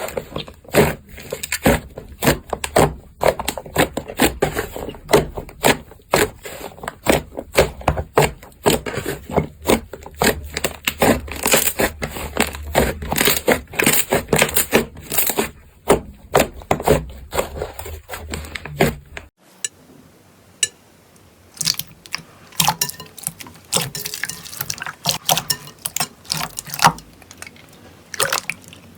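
Slime being squeezed and poked by hand, making a fast, irregular run of wet sticky clicks and pops. About two-thirds through it cuts to a quieter clip with sparser, softer clicks.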